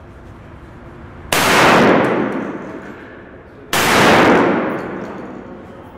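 Two handgun shots about two and a half seconds apart, each followed by a long echo off the concrete walls and ceiling of an indoor range.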